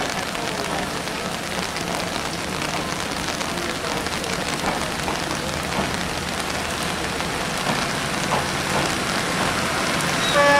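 Steady rain falling, an even hiss with scattered drop patters.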